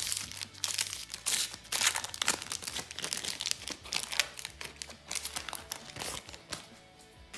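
Foil wrapper of a Panini Adrenalyn XL trading-card booster pack crinkling as it is handled and opened: a dense run of irregular crackles that thins out near the end.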